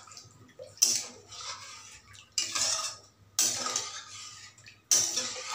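A spatula stirring thin, watery masala gravy in a metal kadhai, scraping against the pan in four strokes about a second apart.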